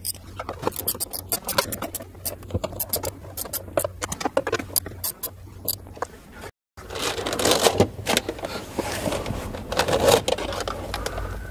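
Quick metallic clicks and small knocks from a hand tool working on the fuse and terminal block. After a short break, a steadier rustling and scraping as twisted speaker cables are pulled and handled around plastic trim.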